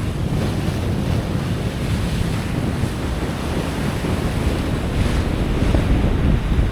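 Wind buffeting the microphone over the rush of sea water past a sailing yacht under way: a steady, loud, low rumble.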